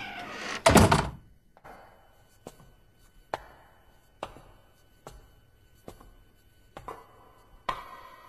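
A heavy thunk about a second in, then slow, evenly paced footsteps echoing in a corridor, about one step a second. Music comes in near the end.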